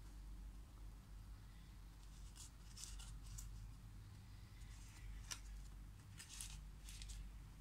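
Faint crinkles and ticks from fingers handling a plastic tray of foil-wrapped chocolate balls. They come in a few short clusters, with one sharper tick a little after the middle, over a low room hum.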